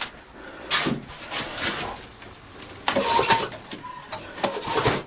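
Ariens two-stage snowblower's recoil starter pulled a few times, turning the engine over without starting it; the engine has good compression.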